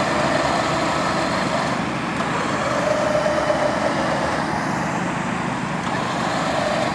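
Off-road 4x4 engines running steadily in the mud, with a faint whine that swells and fades twice.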